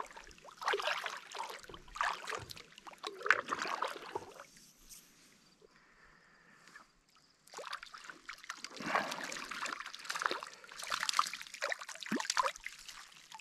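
A kayak paddle stroking through calm lake water: repeated splashes and dripping water off the blades. A lull of about three seconds comes midway, then more splashing and trickling water.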